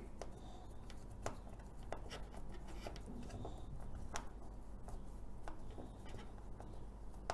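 Hand screwdriver turning a screw into a metal alligator clip: quiet, irregular clicks and light scraping of metal on metal.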